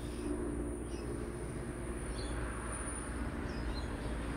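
A steady low hum with a continuous high-pitched insect drone over it and a few faint, short bird chirps.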